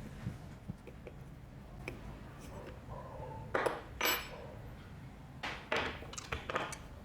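Tools and parts being handled on a workbench during disassembly of an old Makita electric blower: a few short clinks and scrapes, two about halfway through and a quick cluster near the end, over a steady low hum.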